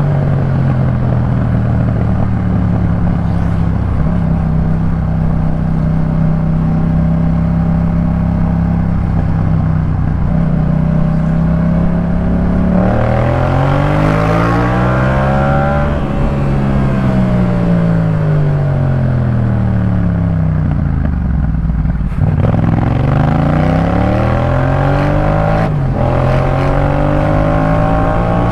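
Yamaha MT-07's parallel-twin engine running through a Jeskap K4 full aftermarket exhaust while riding. It holds a steady cruising note, then accelerates with rising pitch about halfway through. It then winds down slowly, picks up again with another rise a few seconds before the end, and settles back to a steady cruise.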